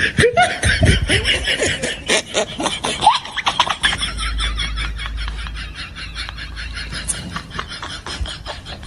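Snickering laughter, coming in quick short laughs.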